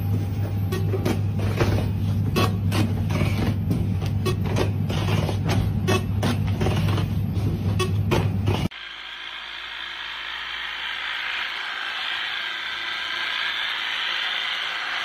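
A machine's steady low hum with sharp irregular clicks, about two or three a second, while denim jeans are processed on it. About nine seconds in it cuts to the steady high buzz of a handheld hedge-trimmer-type tea harvester shearing tea bushes.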